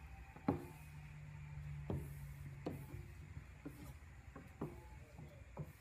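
Several sharp light knocks and taps at irregular intervals from handling an aluminium motorcycle pannier case while vinyl wrap is worked onto it with a squeegee, over a steady low hum.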